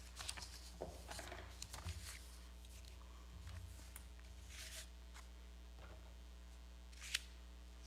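Faint rustling and small handling noises in a quiet room, with one sharp click about seven seconds in, over a steady low hum.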